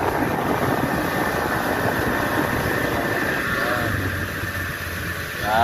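Yamaha 40 hp outboard motor running steadily under the boat. It eases off and gets quieter about halfway through.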